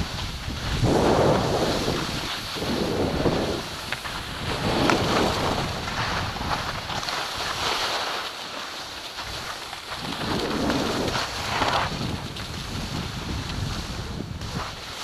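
Skis carving and scraping over packed snow through a run of turns: a hiss that swells with each turn, about every two seconds, with wind rushing over the microphone.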